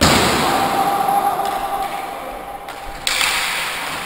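Inline hockey play in an echoing sports hall: sticks, puck and skates clattering, with two sharp knocks, one at the start and another about three seconds in, each ringing out in the hall.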